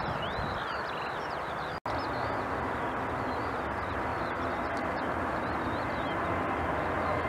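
Distant airliner jet engines, a steady rushing rumble, with small birds chirping over it. The sound drops out for an instant about two seconds in, and a faint whine from the Boeing 737-800's engines grows toward the end.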